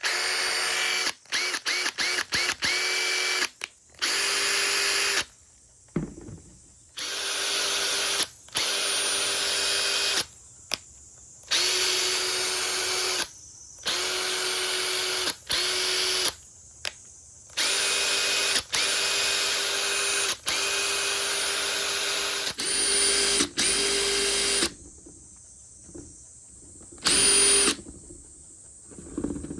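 Makita TP141D cordless impact driver's motor spinning in repeated trigger pulls: a string of quick short blips at first, then runs of one to two seconds each with a steady whine, stopping between each.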